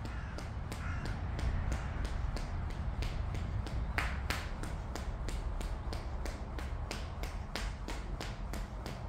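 Skipping rope in steady use: the rope slaps the floor in an even run of sharp clicks, about three a second. A low steady rumble lies underneath.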